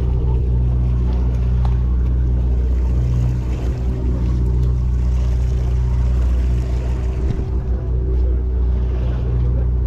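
Sportfishing boat's engine running steadily, a constant low drone with a hum of several steady tones underneath.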